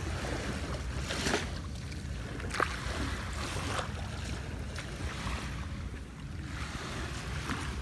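Small waves washing onto a sandy beach, with a few soft swishes, under a steady low rumble of wind on the microphone.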